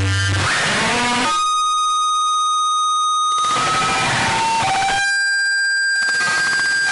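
Electronic creepy sound effect: stretches of hiss with sliding tones alternate with long, steady high tones, all at an even loudness.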